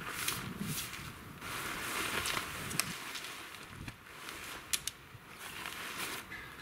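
Tent fabric rustling and shifting as a tunnel shelter is pulled into shape over its poles, with two sharp clicks, one about three seconds in and one near five seconds.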